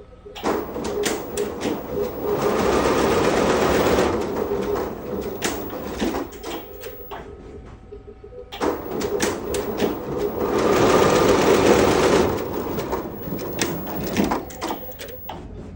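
Multi-head computerised embroidery machine running, its needle heads stitching at speed. The stitching noise grows loud twice, for about two seconds each, with quieter stretches of sharp clicks between.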